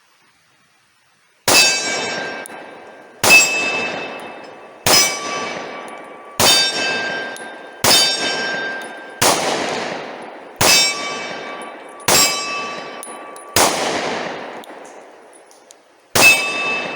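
Ten pistol shots from a Glock 20SF 10mm, fired about one and a half seconds apart with a longer pause before the last. Each shot is followed by a long ringing tail.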